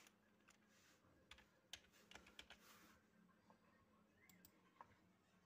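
Faint computer keyboard typing: scattered key clicks, thickest in the middle seconds, over a faint steady low hum.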